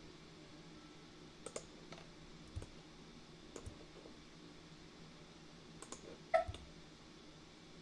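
Computer mouse clicking: scattered single clicks, a few seconds apart, the loudest about six seconds in, over a faint steady low hum.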